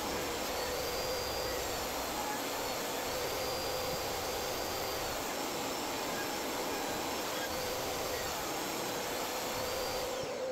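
Workshop machine running steadily: an even rush of noise with a faint hum, no change in pitch or load, cutting off abruptly at the end.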